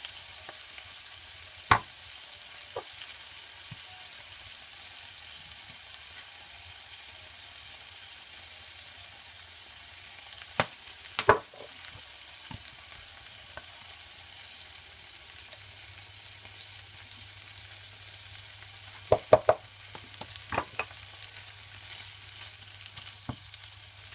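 Bacon-wrapped rolls frying in butter in a frying pan: a steady sizzle, with a few sharp clicks standing out at irregular moments.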